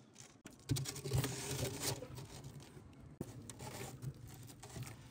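Plastic soft-drink bottles being pushed into a frost-lined freezer compartment: faint knocks, clicks and scraping as they rub against the frost and each other.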